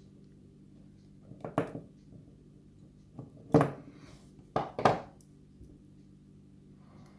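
Small metal objects, a padlock and lock tools, being handled and set down on a hard surface. Four sharp clacks, the loudest about three and a half seconds in, with two close together near five seconds.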